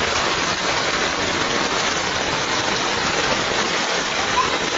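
Heavy rain falling steadily onto standing floodwater, an even, dense hiss.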